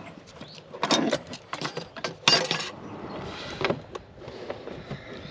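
Cooking gear being handled and set down: a handful of clinks and knocks, the loudest just over two seconds in.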